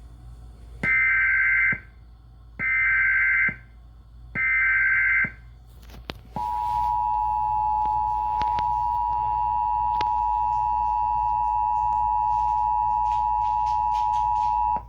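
Emergency Alert System tones. First come three short bursts of the SAME digital header, a harsh two-tone data screech, evenly spaced. Then, about six seconds in, the two-tone attention signal starts and holds steady for about eight seconds before cutting off.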